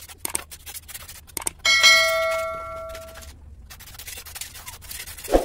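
A run of small clicks, then, about 1.7 s in, a bright bell-like ding that starts suddenly and rings for about a second and a half before dying away: the chime of a subscribe-button animation.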